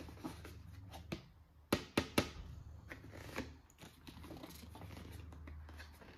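Hands unpacking a toy box: packaging rustling and scraping, with a quick run of three sharp clicks about two seconds in.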